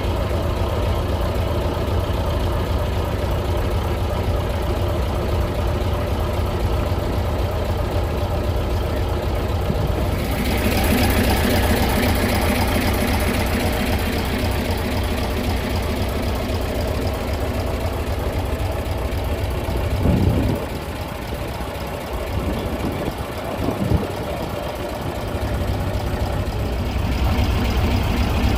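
Engine of a 1967 Scania Vabis LS 76 hot-rod truck running steadily at idle. About a third of the way in the sound turns brighter and hissier; about two-thirds in it thins out, with a couple of short knocks.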